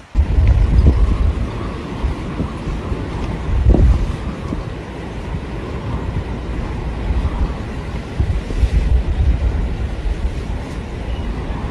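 Storm-force wind buffeting the microphone in loud, gusty low rumbles, over the rush of wind-whipped harbour water churning against the quay.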